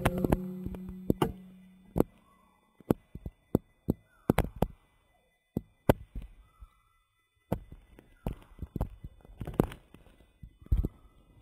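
A low ringing hum from a fish-hunting dart gun's shot dies away over about two seconds, followed by scattered light clicks and knocks.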